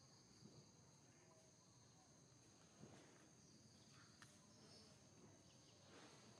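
Near silence: faint outdoor ambience with a steady high-pitched insect drone and a few soft ticks.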